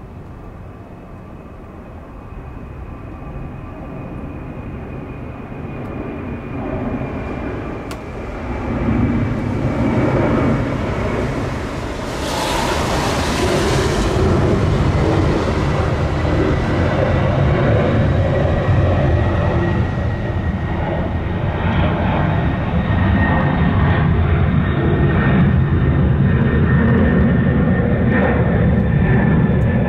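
Boeing 747 jetliner climbing out after takeoff, its engine rumble swelling steadily louder as it nears, with a high whine that slowly falls in pitch.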